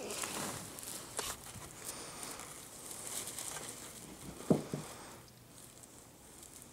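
Soft rustling and crinkling of a cloth sheet as young Cocker Spaniel puppies crawl and shuffle on it, with one brief louder sound about four and a half seconds in.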